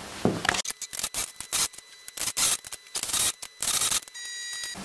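Scissors snipping through fabric in a quick run of cuts, then a brief high steady tone near the end.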